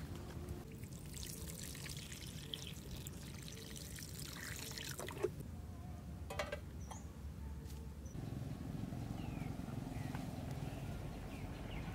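Liquid pouring into a wok for a few seconds. About five and six seconds in, two sharp clinks as an aluminium lid is set on it.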